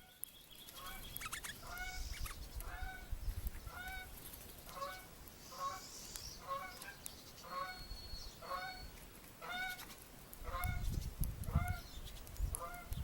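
Goose honking over and over, about two short, rising-and-falling honks a second. A low rumbling noise comes in near the end.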